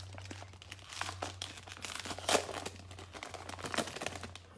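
Plastic wrapper of a Panini Prizm football card pack crinkling and tearing as hands open it, in irregular crackles with a few louder ones, over a steady low hum.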